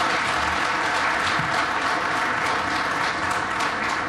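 Chamber full of deputies applauding, a dense steady clapping.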